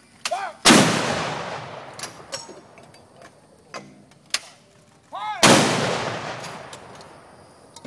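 Two towed howitzers firing salute rounds, about five seconds apart: each a sharp blast followed by a long echo that fades over about two seconds.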